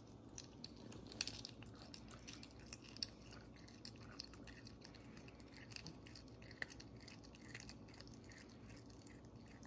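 A cat chewing raw quail meat taken from fingers: faint, irregular wet smacking and clicking of teeth, with a few sharper clicks.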